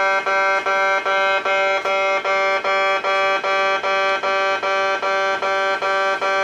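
Kintetsu in-station level crossing alarm sounding its buzzing 'bee-bee-bee' warning, an even, pitched buzz repeating about three times a second, which signals that the crossing is closed for a train.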